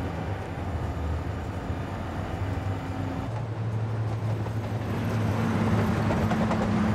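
A British Rail Class 55 Deltic diesel locomotive's two 18-cylinder Napier Deltic opposed-piston engines run steadily as it moves off slowly on light throttle. The drone changes character about three seconds in, and a higher hum grows louder toward the end.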